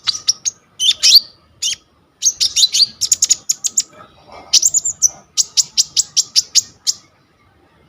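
Konin songbird singing in rapid, high-pitched chirps and trills, delivered in bursts with short pauses. The song is packed with mimicked phrases, the full repertoire prized in a singing bird.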